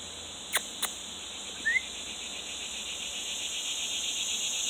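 Cicadas buzzing in a steady, pulsing chorus that grows louder toward the end. Two sharp clicks come about half a second in, and a brief rising chirp follows a second later.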